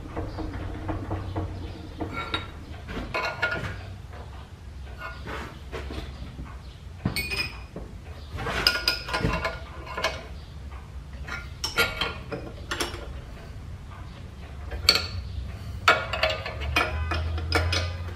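Metal clinks and knocks of a wrench and clamps against a lathe faceplate as a casting is bolted up. A steady low hum runs underneath.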